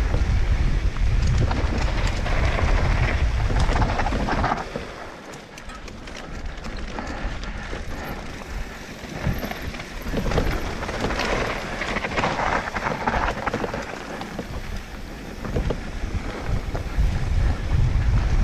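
Wind buffeting the microphone of a mountain bike rider's camera, with tyres running over a rough trail and the bike knocking and rattling. The wind rumble drops off about a quarter of the way in and comes back strongly near the end.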